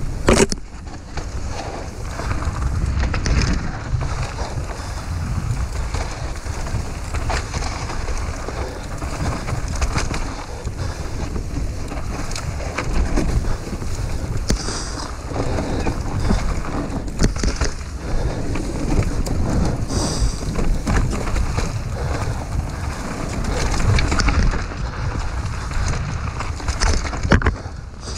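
Mountain bike descending a rough dirt trail at speed: wind buffeting the GoPro Hero 5 microphone and tyres rumbling over the ground, with frequent sharp clicks and knocks as the bike rattles over bumps.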